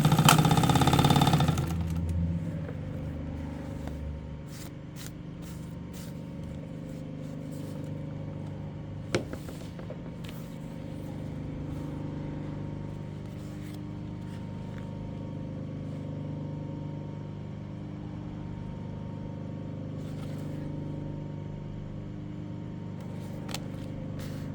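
Seiko STW-8B walking-foot industrial sewing machine, loud for the first two seconds, then its motor humming steadily with a few light clicks.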